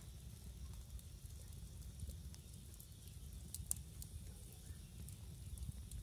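Wood campfire crackling, with scattered small pops of the burning logs, the sharpest about three and a half seconds in, over a steady low rumble.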